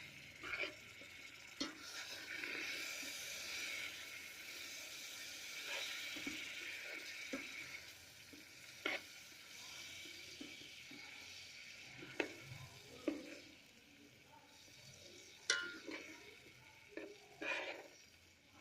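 Semolina sizzling as it roasts in butter in an electric kettle, while a spoon stirs and scrapes it, with sharp knocks against the kettle now and then. The sizzle is stronger in the first half.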